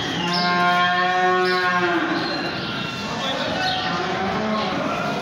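A young Simmental-type bovine mooing: one long moo at a steady pitch, lasting nearly two seconds and ending about two seconds in.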